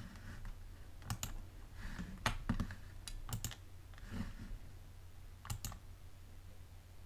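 A few sharp clicks at a computer, mostly in quick pairs, like keys being pressed, over a steady low hum.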